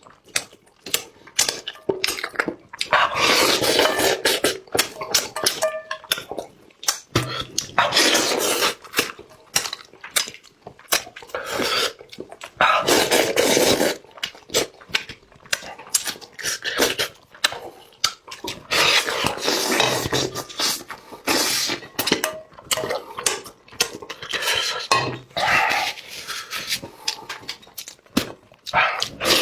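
A person eating close to the microphone: repeated slurps and chewing, with sharp clicks of chopsticks on the dish. Longer slurping bursts come every few seconds.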